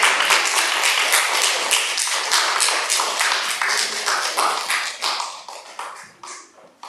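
Audience applauding with a fast patter of many hands clapping, dying away over the last second or two.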